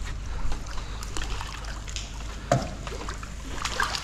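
Water splashing and sloshing at the boat's side as a hooked sheepshead is scooped into a landing net, with one louder sharp hit about two and a half seconds in, over a steady low rumble.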